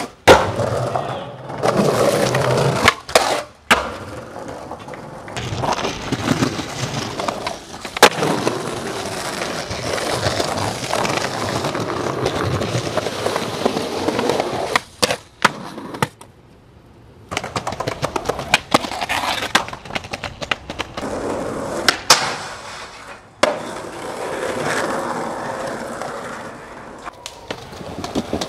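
Skateboard wheels rolling over pavement and stone ledges, broken again and again by sharp wooden clacks of the board popping and landing, about nine in all. The sound drops out briefly some way past the middle.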